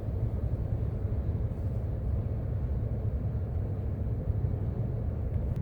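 Steady low rumble of gale-force wind buffeting a parked truck, heard from inside the cab.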